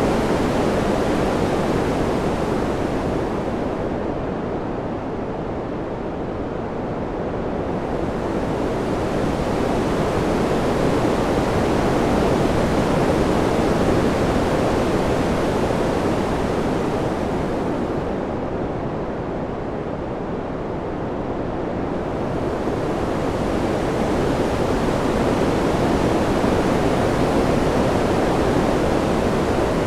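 Ambient wind sound: a steady rushing noise that slowly swells and eases, turning duller and softer about five seconds in and again around twenty seconds in.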